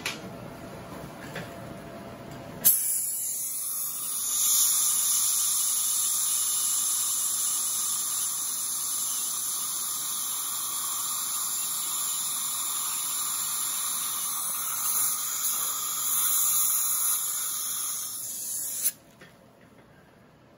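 High-speed dental handpiece cutting a lower molar: a steady high whine that starts abruptly about three seconds in and stops suddenly near the end, with the suction hissing alongside. It is trimming the crown preparation to give enough clearance against the opposing tooth.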